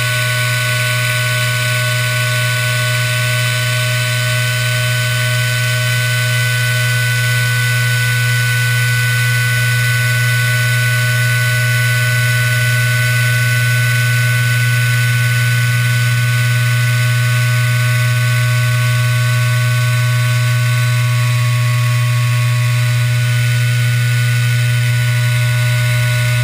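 CNC router spindle running at a steady speed while its bit mills a quadcopter arm out of a flat sheet: a constant loud hum with several steady whining tones above it.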